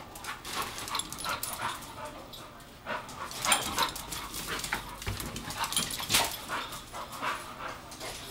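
Pit bull chasing a laser dot: a run of quick, irregular knocks and scuffs from the dog's movement, with the dog's own vocal sounds.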